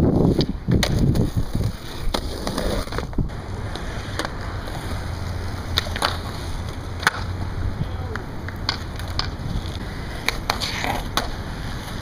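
Skateboard wheels rolling on concrete, with a string of sharp clacks as the board pops, lands and hits a concrete ledge.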